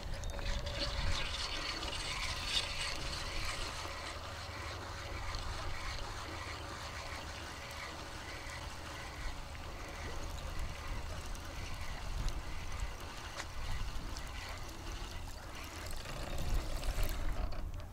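Water splashing and rippling as a hooked crucian carp is drawn across the pond surface toward the bank near the end, over a steady outdoor background noise.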